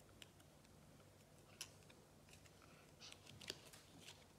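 Near silence with a few faint paper ticks and crackles from fingers peeling the backing off a sticker: one tick about a second and a half in, then a small cluster near the end.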